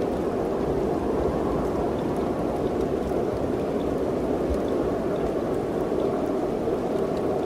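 Steady wind blowing, with a low, uneven rumble underneath.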